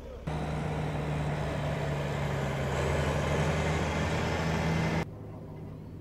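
Diesel tractor engine running steadily at close range, a constant low engine note under a broad mechanical clatter. It starts abruptly about a quarter of a second in and cuts off abruptly near the end, leaving a fainter steady low hum.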